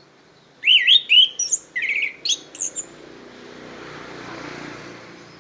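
Orange-headed thrush singing: a quick run of loud, varied whistled notes sweeping up and down for about two seconds, followed by a soft rush of background noise that swells and fades.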